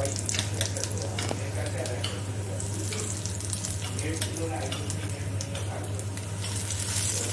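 Minced garlic frying in hot vegetable oil in a pan: a steady sizzling hiss with scattered small crackles and pops.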